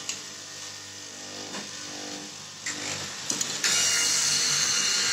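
Electric straight-knife cloth cutting machine running with a steady motor hum. About three and a half seconds in, a much louder hissing noise starts and holds nearly to the end.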